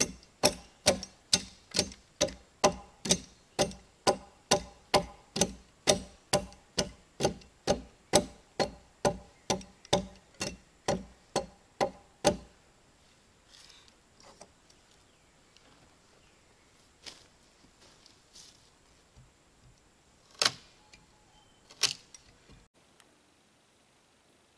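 A steady, even run of sharp, ringing knocks, a little over two a second, which stops after about twelve seconds; then a few faint clicks and two more single knocks near the end.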